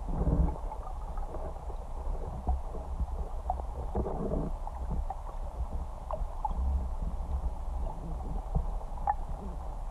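Muffled underwater sound picked up by a submerged camera: a low water rumble with scattered small clicks and gurgles, swelling briefly just after the start and again about four seconds in.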